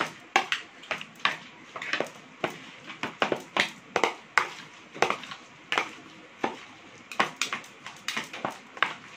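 A fork and a spoon clicking and scraping against a plastic mixing bowl as a minced mixture is stirred and folded by hand, in irregular knocks about two a second.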